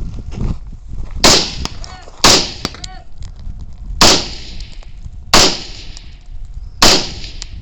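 Five rifle shots, spaced about one to one and a half seconds apart, each followed by a short reverberating tail.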